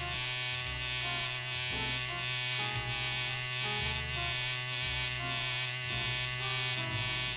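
Rotary tattoo pen machine running steadily on a wireless battery power supply: a continuous electric buzz with a steady hum.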